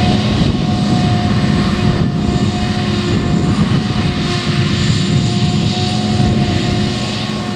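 Claas Jaguar self-propelled forage harvester running under load, chopping rye and blowing it into a trailer, with a JCB Fastrac tractor running alongside. A steady, loud engine drone with a constant high whine on top.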